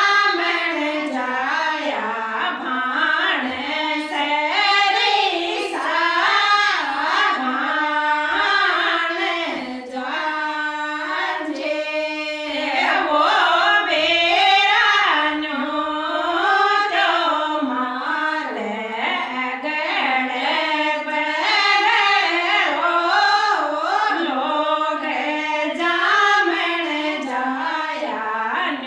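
A group of women singing a traditional Rajasthani wedding folk song together in unison, unaccompanied by instruments.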